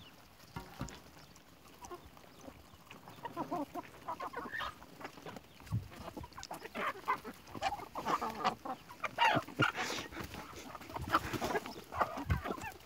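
A flock of domestic chickens clucking, many short calls overlapping; quiet at first, getting busier from about three seconds in.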